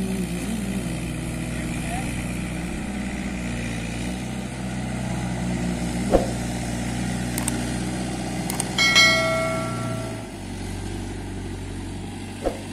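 Farm tractor diesel engine running steadily, its note dropping a little about ten seconds in. Just before that comes a brief, steady high tone lasting about a second, and there are two sharp knocks, one midway and one near the end.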